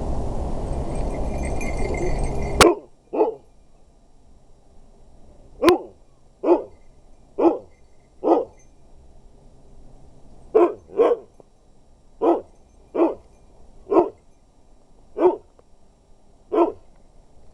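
Loud steady rushing noise that cuts off suddenly a little under three seconds in, then a husky barking about a dozen times, single barks and quick pairs roughly a second apart.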